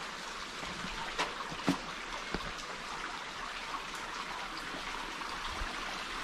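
Water steadily trickling and dripping, with a few louder single drops in the first few seconds.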